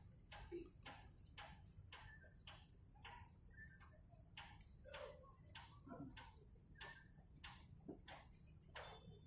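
Near silence with a faint, regular tick about twice a second.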